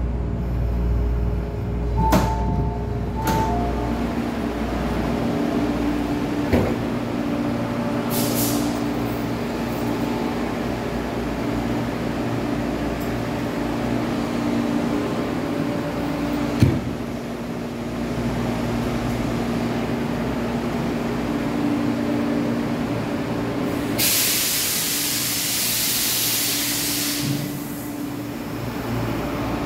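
MTR East Rail Line mid-life refurbished electric train heard from inside the carriage: steady running noise and hum with a few sharp knocks. About 24 seconds in comes a loud hiss of compressed air lasting about three seconds.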